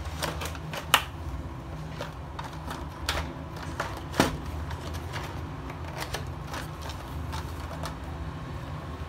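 A boxed rOtring Master Set being handled and laid down on a desk mat: scattered light clicks and taps, with a sharp knock about a second in and a heavier knock about four seconds in as the box tips over.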